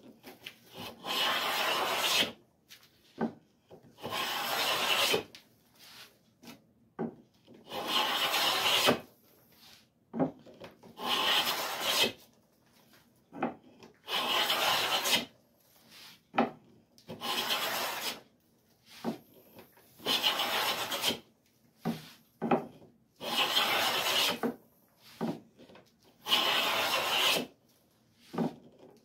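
Ovolo moulding plane cutting a profile along a cherry board: nine long planing strokes about three seconds apart, each taking a shaving, with short knocks between strokes.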